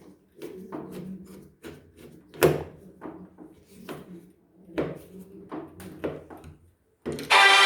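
Irregular clicks and knocks of a steel door handle and its lock parts being fitted back together on a door, with one louder knock about two and a half seconds in. Loud music starts near the end.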